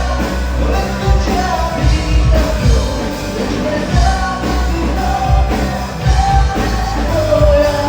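Background song with a male or female vocal melody over a steady thumping bass beat.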